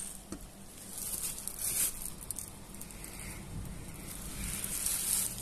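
Faint rustling and handling noise, in a few soft patches, over a low steady hum.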